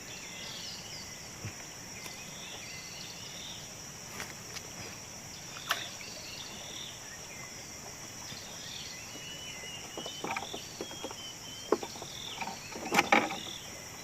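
Insects, crickets or cicadas, chirring in a steady high drone, with scattered short chirps over it. A few sharp knocks break in, the loudest cluster near the end.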